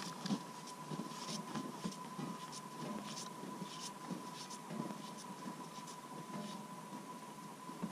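Faint crunching footsteps in snow moving away, about two a second, over a thin steady high tone.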